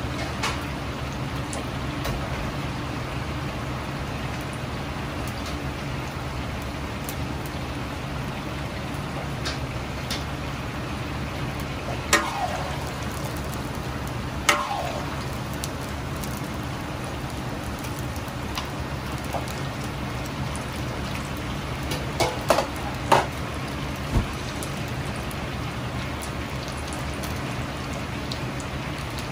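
Chicken pieces in an egg and potato-starch coating deep-frying in a large wok of hot oil: a steady sizzle over a low hum. A few sharp knocks of the metal ladle against the wok come about halfway through and again a little later.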